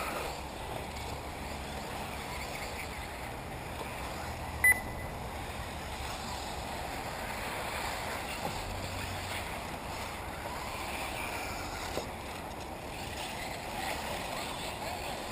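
Faint whine of electric 1/8-scale RC buggies racing around a dirt track, rising and falling, under a steady outdoor noise. A short sharp click about four and a half seconds in is the loudest moment.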